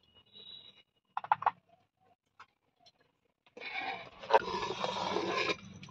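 Cooking noises at an aluminium pot of boiling khichuri. A brief clatter comes a little over a second in. Then there is a rough scraping, rustling noise for about two seconds that cuts off suddenly.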